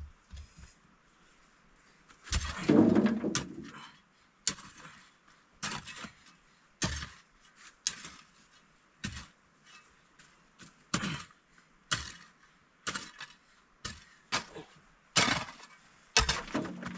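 An irregular series of short knocks and clatters, roughly one a second, with a longer, louder clatter about two to three seconds in.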